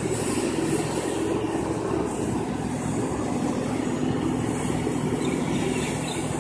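Boeing 777-300ER airliner being pushed back by a tow tug: a steady, loud mechanical drone with a low hum and a high whine.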